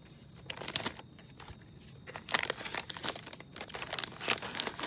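Plastic instant-noodle packet crinkling as it is picked up and handled: irregular crackles, loudest about two and a half seconds in and again near the end.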